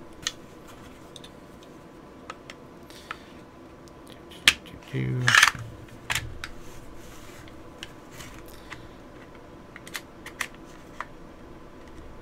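Small metallic clicks, knocks and scrapes of a CZ P-09 pistol being reassembled by hand, its slide, barrel and recoil spring going back onto the frame. One sharp click about four and a half seconds in, then a louder, brief scraping sound.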